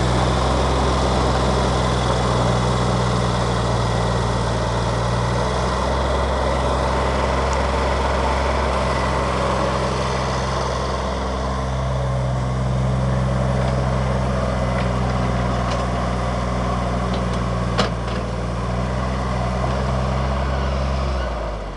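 Diesel engine of a Hanix 037 mini excavator running steadily at speed, its note shifting slightly a few times, with one sharp click about eighteen seconds in. The engine sound falls away right at the end.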